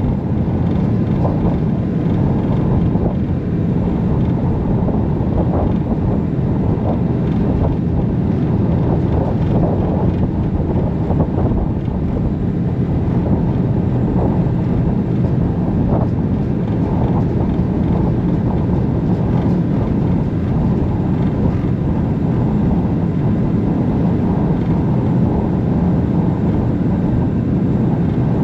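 Harbour ferry underway: a steady low drone of its engine mixed with the rush of water.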